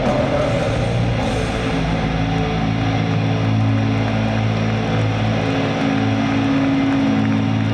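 Metal band's distorted guitars and bass holding a low, steady droning chord through the PA over a wash of crowd noise, with no drums: a song ringing out.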